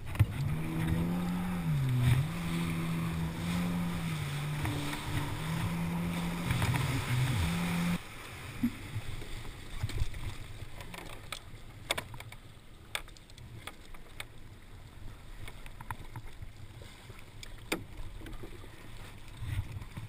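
Kawasaki Ultra LX jet ski's four-stroke engine running at speed with a steady drone that dips in pitch twice as the throttle eases, then stops abruptly about eight seconds in. After that, water rushing and splashing with wind on the microphone and scattered sharp knocks.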